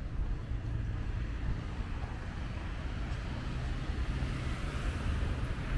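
Street ambience of road traffic: a steady low rumble, with a passing vehicle's noise swelling briefly around four to five seconds in.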